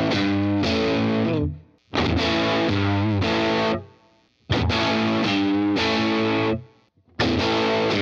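The same short overdriven electric guitar riff played about four times in a row, switching between a PRS Silver Sky and a Squier Bullet HT Stratocaster, through a Fender '55 Tweed Deluxe amp plug-in and an 1176 compressor. Each take starts abruptly and its last chord rings out and fades before the next begins.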